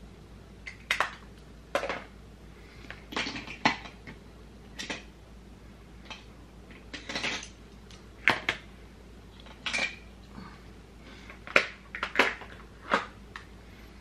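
Makeup compacts and cases clicking and clacking as they are handled, opened, closed and set down: about a dozen short, sharp clicks at irregular intervals.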